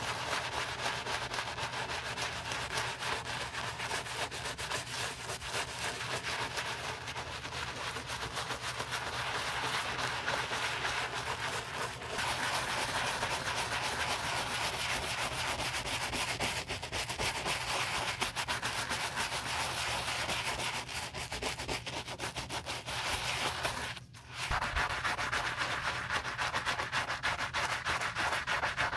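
A stiff-bristled brush with a wooden handle scrubbing lathered cleaner into a white leather sneaker in rapid back-and-forth strokes. The scrubbing stops briefly about three quarters of the way through, then carries on.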